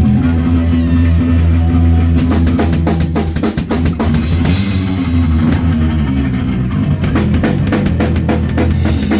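Live rock band playing at a sound check: sustained bass notes with guitar, and the drum kit coming in about two seconds in with a quick run of hits and a cymbal crash.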